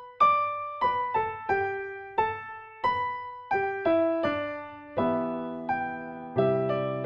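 Piano music: a slow melody of single struck notes that ring and fade, turning into fuller chords with bass notes about five seconds in.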